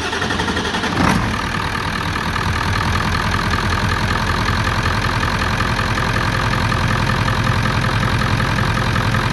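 Ford 7.3L Powerstroke V8 turbo-diesel cranked by its starter and catching about a second in, then running steadily. It starts quickly, as expected with the injection pressure regulator now in place.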